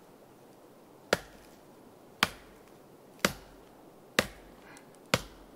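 Varusteleka Skrama bush knife chopping dead wood: five sharp strikes, about one a second.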